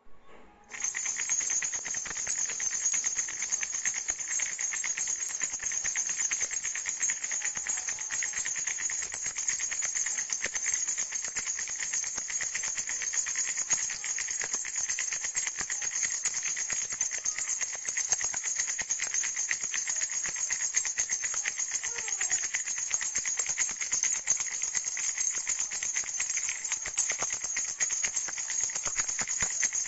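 Baby's flower rattle shaken rapidly and without pause, a dense, bright rattling that starts about a second in.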